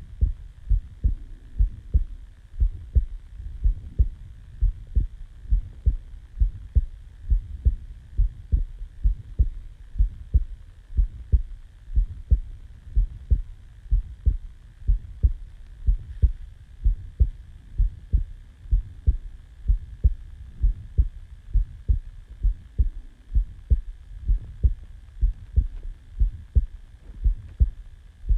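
A person's heartbeat just after waking from sleep: a steady, regular rhythm of low thumps in lub-dub pairs.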